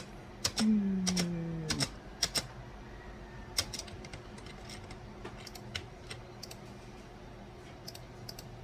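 Scattered, irregular clicks of keys on a computer keyboard, with a short falling vocal sound from a person about a second in.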